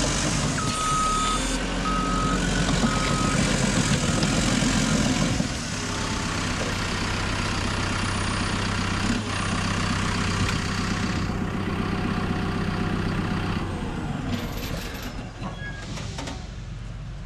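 Diesel engine of a heavy earthmoving machine running, with a backup alarm giving a few short beeps in the first few seconds. The engine drops back about five seconds in and eases off further near the end.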